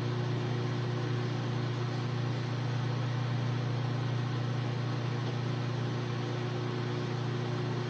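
Microwave oven running on a defrost cycle with a frozen drink turning on the turntable: a steady low electrical hum over an even fan whir.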